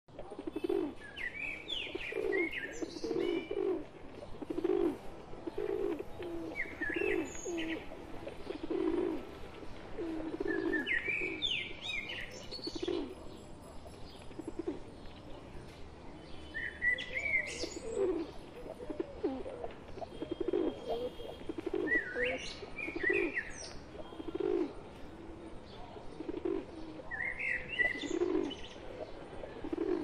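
A flock of rock pigeons cooing continuously, many low coos overlapping. Above them a small bird's chirping phrase comes back about every five seconds.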